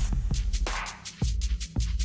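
Background music with an electronic beat: a deep kick drum about every 0.6 seconds over a steady bass note, with fast hi-hat ticks on top.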